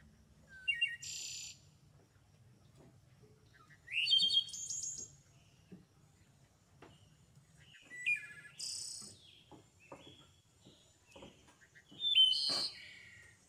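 A bird singing in four short bursts of high chirps with quick rising notes, a few seconds apart. Faint knocks and clicks sound between the bursts.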